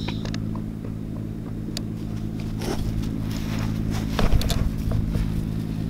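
Steady low mechanical hum under light rustling and scattered clicks of footsteps on grass, with a heavier bump about four seconds in.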